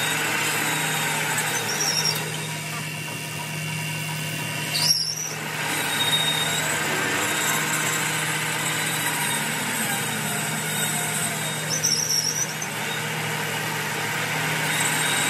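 Metal lathe running steadily with a cutting tool biting into a large spinning steel disc, a constant low hum under the noise of the cut. Short high squeals of the tool on the steel come about five seconds in, the loudest moment, and again near twelve seconds.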